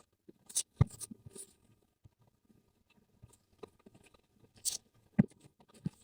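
A few scattered sharp clicks and short breathy hisses, with near-silent gaps between them.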